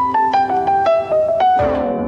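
Background music: a piano-like keyboard melody of short notes stepping mostly downward, with a rushing sweep building near the end.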